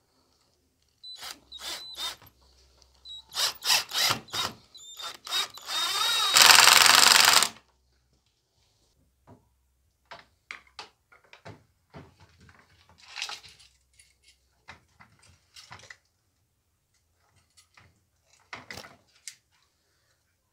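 Power drill run in several short trigger bursts, then a longer run about six seconds in, the loudest part, drilling holes through wood. After that come scattered light clicks and knocks.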